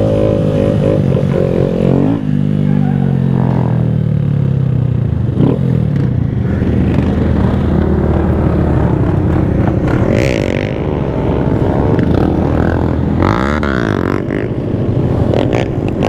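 Honda Grom's 125 cc single-cylinder four-stroke engine being ridden, revving up and down: the pitch falls about two seconds in, then rises and falls repeatedly as the bike accelerates and slows.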